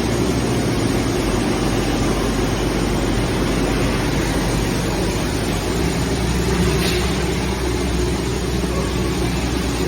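Steady industrial machinery running, an even mechanical noise over a constant low hum.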